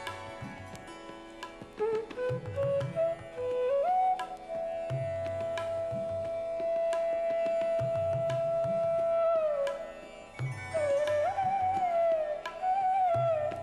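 Background music in an Indian classical style: a gliding melody line holds one long note in the middle, over low drum strokes and a steady drone.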